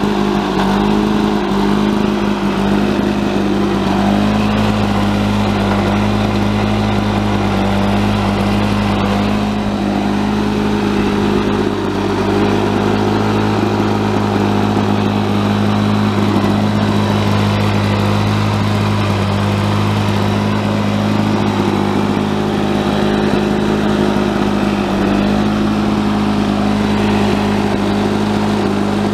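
1986 Lawn-Boy 5126 mower's two-stroke OMC F-380 engine running at a steady speed.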